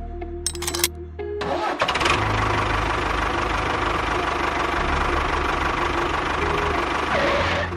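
A small engine starting and then running steadily, after a few sharp clicks near the start.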